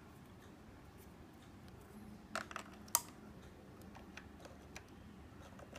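A few sharp plastic clicks and rattles from an RJ45 patch-cable plug being handled and pushed into a mobile radio's front microphone socket, the loudest about three seconds in, with a couple of lighter ticks after.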